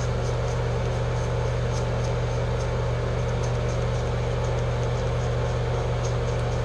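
Bathroom extractor fan running with a steady hum. Faint scratchy strokes of a cartridge razor over lathered stubble come through over it.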